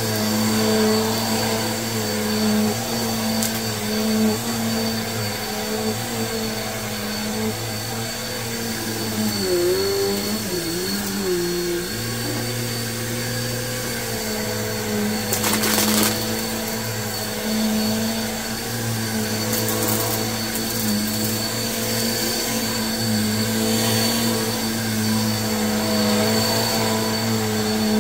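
Bissell Purple Helix upright vacuum running over a rug, a steady motor hum with a thin high whine on top. Its pitch drops and wavers for a couple of seconds about ten seconds in. About halfway through there is a short crackle of grit being sucked up.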